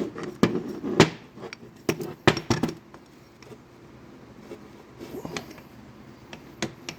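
Sharp metal clicks and clunks from handling a piston, connecting rod and wrist pin: a quick run of knocks in the first three seconds, the loudest about a second in, then a couple more clicks near the end.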